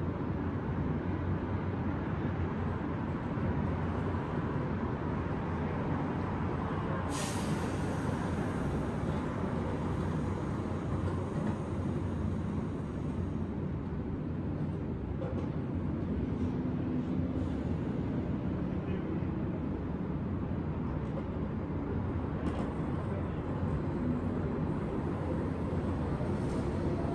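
Steady rumble of downtown city traffic, with a short sharp hiss about seven seconds in.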